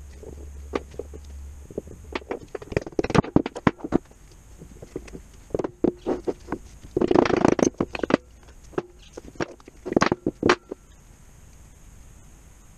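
Metal clanks, knocks and scrapes as a Midland air compressor is taken apart on a steel workbench: a piston is worked out of its bore and the cast-iron block is turned over. The knocks come in three busy clusters, about three seconds in, about seven seconds in and about ten seconds in.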